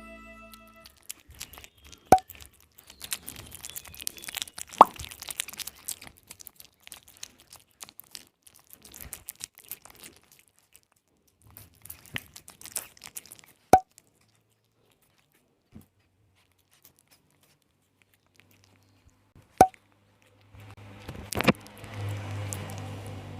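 Close-up sounds of a cat eating a cat treat: scattered small wet clicks and smacks of its mouth, with four sharp louder plops spread through, and a quiet stretch in the middle. Near the end comes a denser patch of rustling noise over a low hum.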